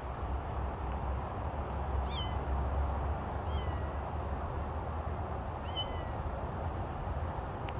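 Siamese lilac-point kitten giving three short, high-pitched meows, with the second one fainter.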